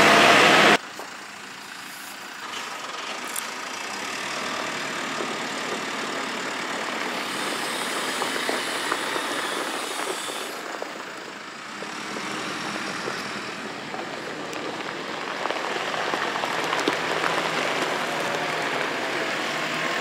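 JCB 535-95 telehandler's diesel engine running steadily as the machine drives with a load of hay bales in its grapple, growing louder near the end as it passes close by.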